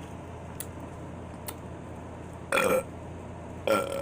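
A woman burping twice, about a second apart, with each burp short and loud. The burps are brought on by Dr Pepper soda.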